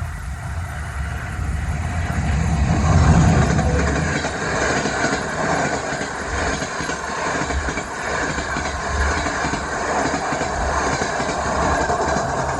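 Train running on rails: a steady rumble of the wheels, with a few low knocks over the rail joints. It swells louder about three seconds in.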